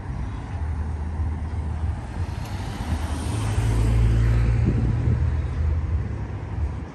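Street traffic: a car passes, its noise swelling to a peak a few seconds in and then fading, over a steady low rumble.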